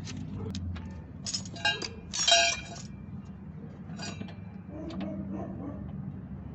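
Sharp metallic clinks and a short rattle of metal on metal, densest about one and a half to three seconds in, with a few lighter ticks later.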